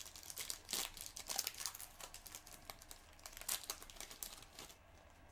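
Crinkling and rustling of trading-card packs and cards being handled: a quick run of crisp crackles that dies down near the end.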